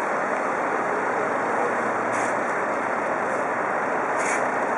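Steady, even noise of running vehicle engines at the scene, with two brief hisses about two and four seconds in.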